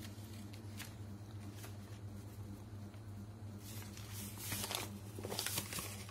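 Soft rustling and shuffling as a baby handles paper and moves on a bed, with a few light clicks early and louder rustling about four seconds in, over a steady low hum.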